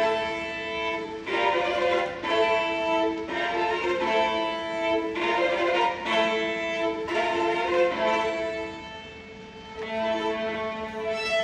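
Orchestra strings, violins leading, playing sustained bowed notes. They come in suddenly and loudly after a quiet passage, ease off about nine seconds in, then pick up again.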